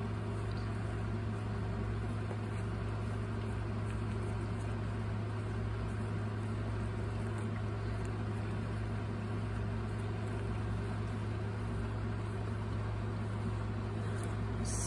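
Steady low electrical hum with overtones, like a motor or appliance running, with faint scratches of fingertips brushing through dry, sandy substrate and a few light clicks near the end.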